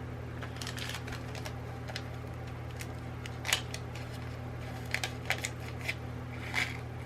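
Small bead packages being handled: scattered light clicks and crinkles of plastic bags and beads, the sharpest about halfway through and a few more close together near the end, over a steady low hum.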